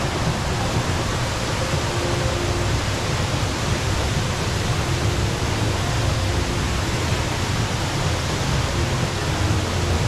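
Steady, deep rushing noise of the Rain Vortex, a tall indoor waterfall plunging from an opening in a glass dome into a basin below.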